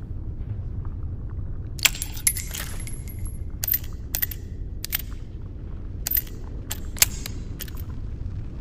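Taurus Judge revolver being handled between shots: a string of about a dozen sharp metallic clicks and clinks, some ringing briefly, over a steady low rumble.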